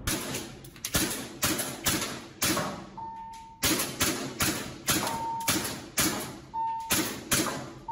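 WE Glock G17 Gen5 gas-blowback airsoft pistol fired shot after shot, about two a second, each a sharp crack with a short echo. A brief ringing tone follows several of the shots.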